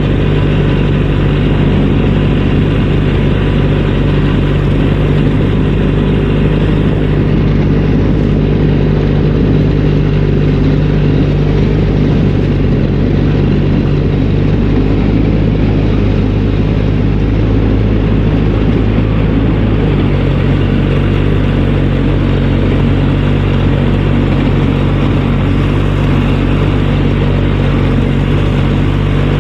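ATV (four-wheeler) engine running steadily, its pitch shifting slightly about twenty seconds in.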